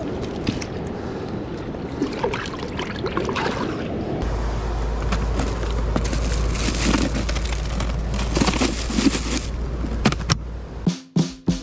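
Seawater sloshing and washing over reef rocks, with knocks and clicks of gear being handled. A low steady rumble comes in about four seconds in.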